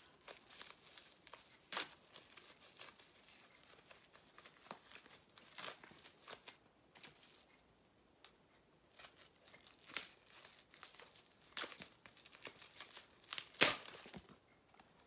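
Clear plastic protective wrapping crinkling and tearing as it is peeled off a new leather handbag's handles, in short scattered crackles, with the loudest burst near the end.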